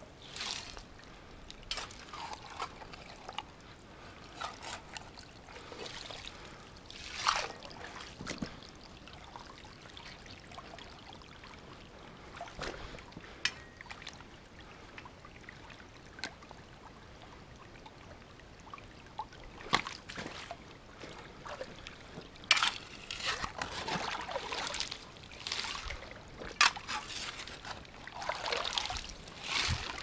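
Shallow creek water trickling, with irregular splashing and sloshing in the water and a few sharp knocks. It is calmer through the middle and busier in the last third.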